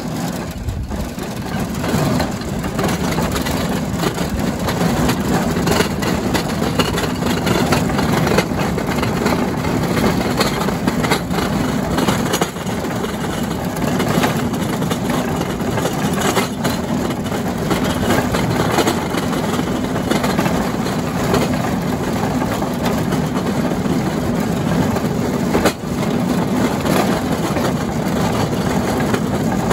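The engine of a narrow-gauge rail vehicle running steadily as it pushes a loaded wagon slowly along rough track, with scattered clicks and knocks from the wheels and load.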